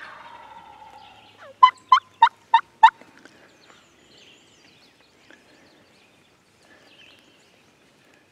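Turkey yelping: a run of five loud, sharp notes about a third of a second apart, after a softer falling note.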